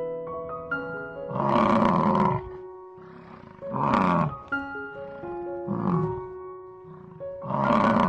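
Water buffalo calling four times, roughly every two seconds, the first and last calls the longest, over background music.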